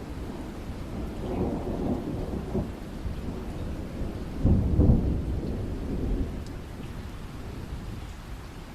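Thunder rumbling over steady rain, with the loudest roll about four and a half seconds in, then dying away.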